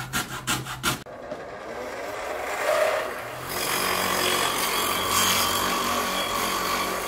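Hand hacksaw cutting with quick back-and-forth strokes for about a second, then a steady whirring noise with a faint hum that builds up and holds for the rest of the time.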